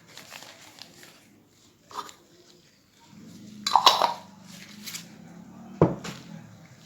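Kitchenware clinking and knocking: a light knock about two seconds in, a louder run of clinks in the middle, and a sharp single knock near the end.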